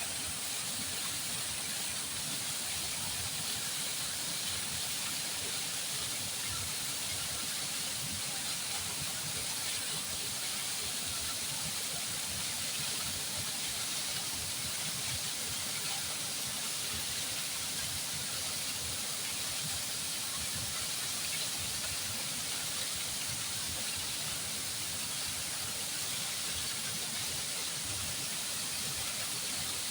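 Flowing water, a steady hissing rush with no breaks or changes.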